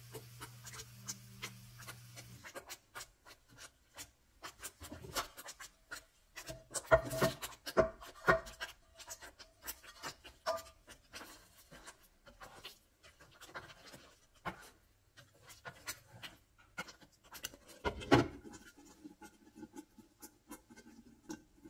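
Metal spoon scraping and clicking against a metal pan as thick curry sauce is spooned out into an enamelled cast-iron skillet, with a few louder ringing knocks around seven to eight seconds in. A loud knock near the end, as a glass lid is set on the skillet. A low hum stops about two seconds in.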